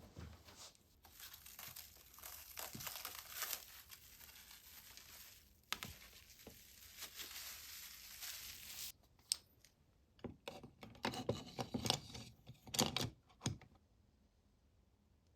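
Crinkling and rustling of packaging or wrap being handled, with a sharp click partway through. In the last few seconds it breaks into a run of separate crackles and clicks, then stops.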